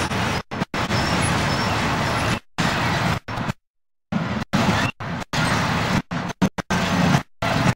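Loaded merry-go-round coal train running past: steady rumble of the hopper wagons on the rails. The sound cuts out again and again, with one longer gap about halfway through.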